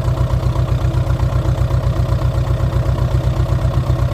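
Bulldozer's diesel engine idling steadily, with a fast, even low throb.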